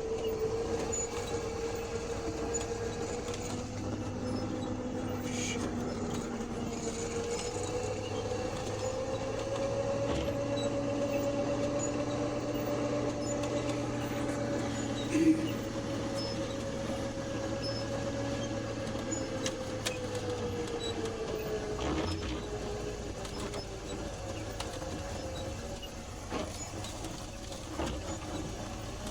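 Vehicle engine running with a steady whine that rises gently in pitch, holds, then falls back about twenty seconds in, over a low hum. A single sharp knock sounds about fifteen seconds in.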